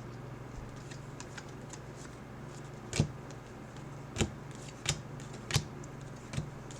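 Trading cards being handled: a few short, sharp clicks and taps, about five of them in the second half, over a steady low hum.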